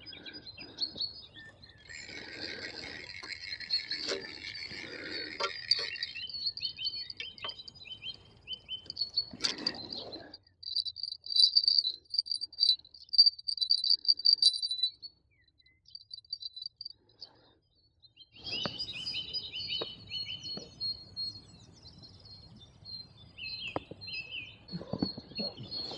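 Small birds singing: overlapping high chirps and short whistled phrases, with a fast, high repeated trill in the middle that stops abruptly, followed by a few seconds of near silence before the chirping starts again.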